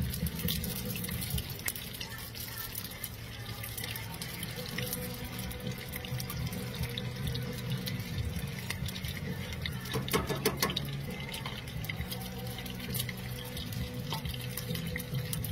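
Crab rangoons frying in hot oil in a cast iron skillet: a steady bubbling sizzle thick with small crackles, in oil the cook says is a little too hot. Metal tongs clink against the pan about ten seconds in.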